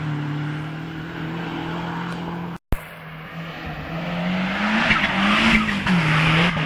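Hill-climb race cars climbing past at high revs, their engines holding a steady note. The sound cuts out abruptly about two and a half seconds in. After that a car's engine note rises and falls as it passes close, with tyres squealing.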